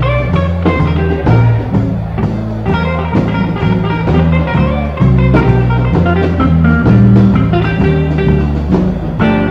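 Blues band recording with guitar, over a bass line that moves in steady, even steps.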